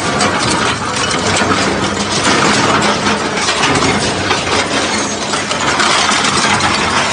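Hydraulic two-shaft shredder tearing up scrap aluminum: a dense, continuous clatter and grinding of metal being cut between the rotating shafts, with a steady low hum from the machine's drive underneath.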